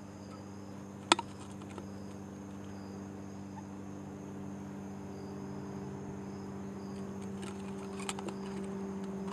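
Crickets chirring steadily over a low steady hum that slowly grows a little louder, with one sharp click about a second in and a few faint ticks near the end.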